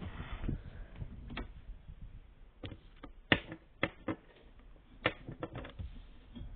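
Scattered sharp clicks and taps at uneven intervals, about a dozen in all, the loudest a little over three seconds in.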